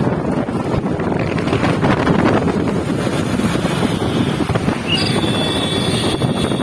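Wind buffeting the microphone over the rumble of a moving vehicle, heard from on board while riding along a road. A faint high steady tone comes in about five seconds in.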